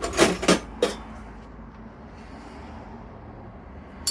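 Metal spanners clinking against one another as they are handled and set down, about four sharp clinks in the first second, then quiet.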